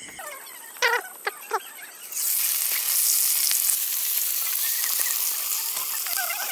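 Fish frying in hot oil in an iron wok. A loud, even sizzle starts about two seconds in, after three short squeaky sounds.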